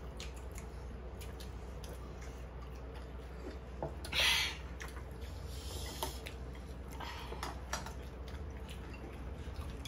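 Quiet table eating sounds: chopsticks tapping against bowls in a few faint clicks, soft chewing, and one brief hissy sound a little after four seconds in, over a steady low hum of room tone.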